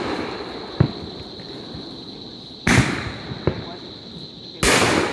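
Aerial fireworks shells exploding: a sharp bang about a second in and another at about three and a half seconds, with two loud bursts near two and a half and four and a half seconds, each trailing off in a long decaying rumble.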